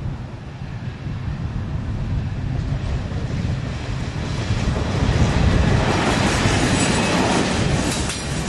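Bilevel passenger train running past at track speed: a rumble of wheels on rail that grows louder as the train nears, loudest in the second half.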